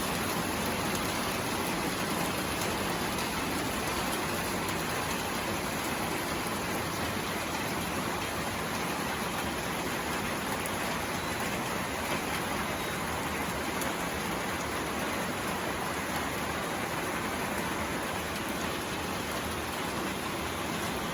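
Steady rain falling on a roof, a dense even patter with no letting up.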